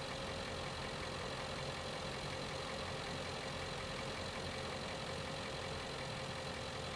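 A steady, unchanging mechanical hum like an idling engine, with a faint steady whine above it.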